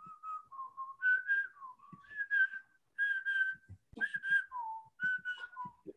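A person whistling a tune in a string of short notes that step and slide up and down, with a few soft clicks underneath.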